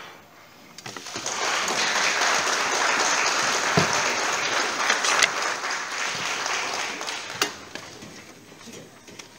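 Audience applauding at the end of a piece, starting about a second in and dying away near the end.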